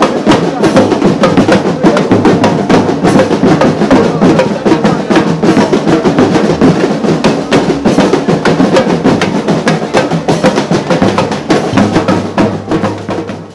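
Loud drum and percussion music, a dense run of rapid drum strikes, which cuts off suddenly.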